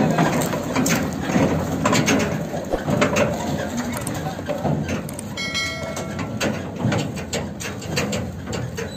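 HMT tractor's diesel engine running, with rattling and clanking from the empty tipping trolley as its body comes down and the rig moves off. A brief high-pitched tone sounds about five and a half seconds in.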